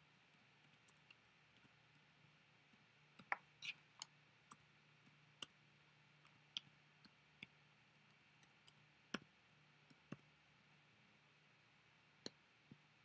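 Near silence broken by about a dozen faint, irregularly spaced computer keyboard and mouse clicks, the loudest about three seconds in, over a faint steady low hum.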